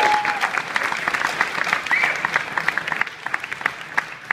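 Audience applauding. The clapping is dense at first and thins out to a few scattered claps near the end.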